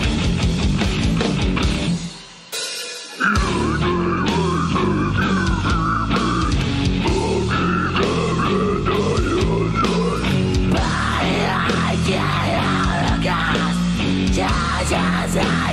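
Live heavy-metal band with a singer: drums, distorted guitar and vocals. The band stops abruptly for about a second, about two seconds in, then crashes back in under a wavering high lead line.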